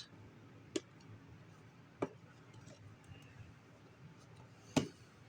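Three short, sharp clicks spread over a few seconds, the last the loudest, over a faint low room hum.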